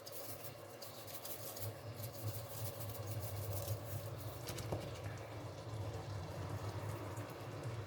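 Faint light taps and rustles of items being handled, over a steady low hum.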